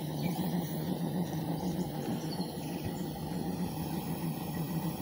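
Butane gas burner of a live steam model locomotive running steadily, a low, even roar with a faint hiss above it.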